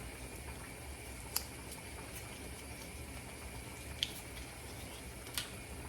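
Faint simmering of pots on the hob under a steady low hum, with three small sharp clicks spread through.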